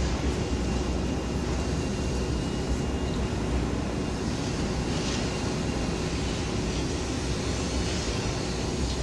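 Heavy diesel demolition machinery running: a long-reach demolition excavator's engine making a constant drone with a steady hum over it.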